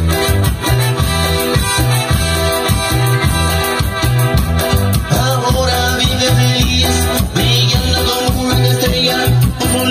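Chilena dance music played loud over a sonido (DJ sound system), with a steady bass beat running under the melody.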